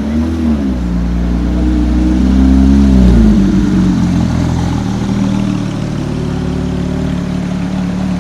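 Car engine revving in swells, its pitch rising and falling twice, loudest about three seconds in, then settling to a steady lower running sound.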